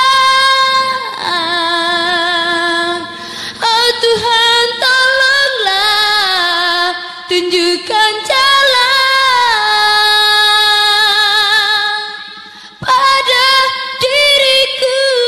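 A young woman singing a cappella into a handheld microphone, holding long notes with vibrato and sliding between pitches, with a short breath break near the end.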